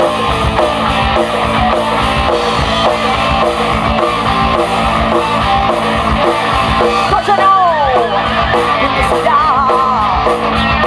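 Live rock band playing loud, with electric guitar and drum kit. In the second half, long high notes slide down in pitch and then waver.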